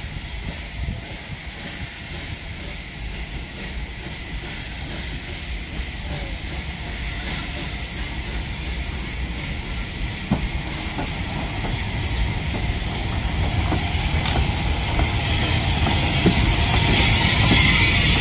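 Bulleid Battle of Britain class three-cylinder steam locomotive 34072 '257 Squadron' coming in slowly tender-first and passing close by: a low rumble and steam hiss that grow steadily louder, the hiss strongest near the end, with a single sharp clank about ten seconds in.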